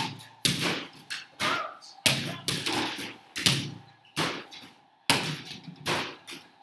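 Small rubber basketballs of an arcade-style basketball hoop game thudding against the backboard and rim in quick succession, about one or two hits a second at an uneven pace.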